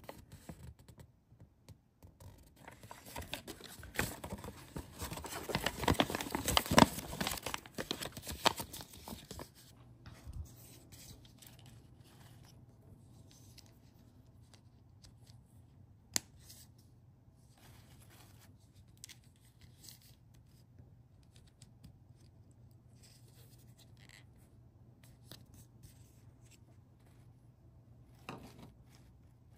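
Several seconds of loud crinkling and rustling as the kit's paper and plastic packaging is handled. After that come sparse faint clicks and taps of small plastic miniature parts being handled and fitted together, with one sharper click.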